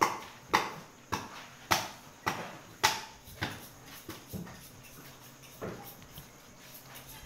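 Sharp knocks repeating in a steady rhythm, about two a second, loud for the first three seconds and then thinning to a few weaker ones.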